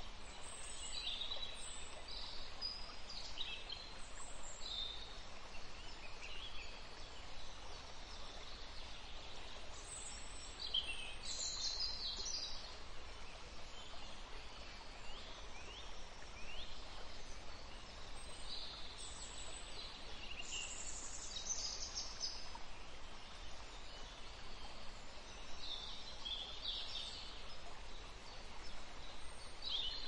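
Songbirds chirping and calling in scattered bursts over the steady rush of a distant waterfall.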